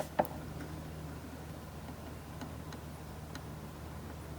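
A few faint, light clicks of something being handled, with one slightly louder click just after the start, over a steady low hum.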